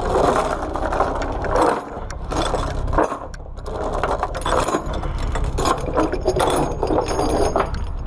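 Steel load chains rattling and clinking as they are gathered up by hand on a wooden trailer deck, with scraping and sharp metallic clicks, over a steady low rumble.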